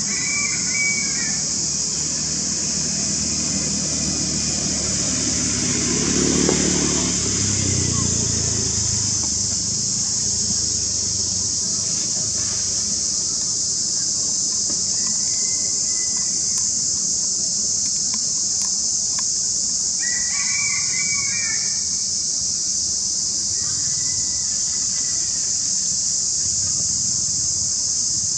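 A steady, high chorus of insects drones throughout. A few short, high squeaky calls rise over it, about a second in and again around sixteen, twenty and twenty-four seconds. A low rumble swells briefly around six to eight seconds in.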